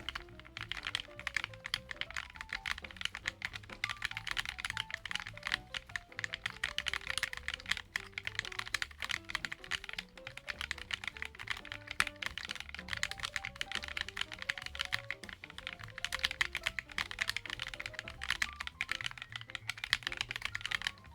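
Typing on the Drift Keyboard, a hand-assembled split mechanical keyboard: a fast, continuous run of key clacks. Background music with a simple melody plays alongside.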